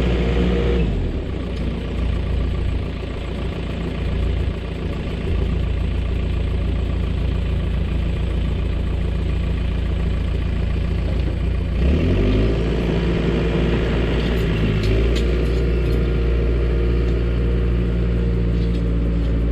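Dresser bulldozer's diesel engine running. Its pitch drops about a second in, then climbs back up in two steps later on.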